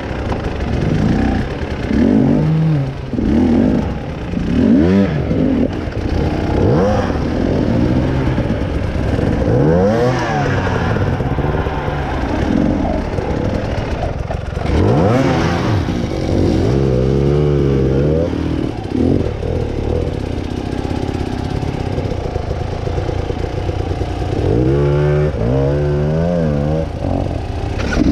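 Off-road trail motorcycle engine revved up and down again and again, in repeated rising and falling surges.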